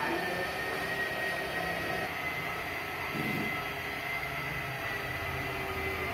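Handheld electric car polisher running steadily with a foam pad on a painted door panel: an even motor whine over a low hum.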